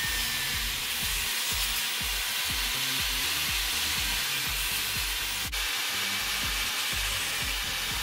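Angle grinder with a cutting disc cutting into the metal housing of a car door hinge limiter: a steady harsh hiss, with a brief break a little past halfway. Background music with a steady beat plays underneath.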